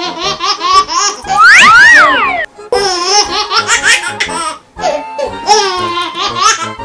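High-pitched laughter in quick giggling bursts, with a loud rising-and-falling squeal a little under two seconds in.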